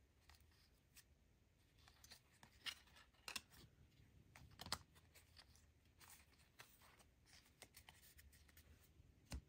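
Faint flicks, slides and rustles of a stack of trading cards being thumbed through by hand, with a few sharper clicks bunched about three to five seconds in and another just before the end.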